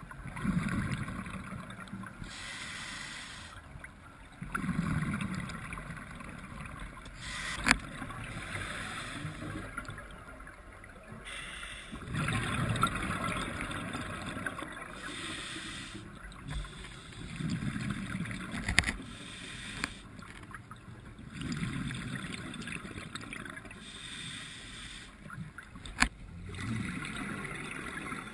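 Scuba divers breathing heard underwater: rushes of exhaled bubbles and regulator breaths coming and going every few seconds, with three sharp clicks.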